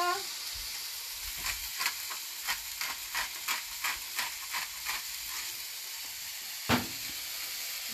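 Chicken, onions and peppers sizzling steadily on a hot cast iron griddle, with a pepper mill ground over the food in a run of quick clicks at two or three a second. A single sharp knock near the end is the loudest sound.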